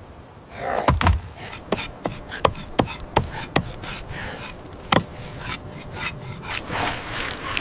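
A heavy wooden thud about a second in, a mallet driving a wooden stake into the ground. Then a run of sharp knocks and scraping: stone blades chopping and scraping meat on a stone slab.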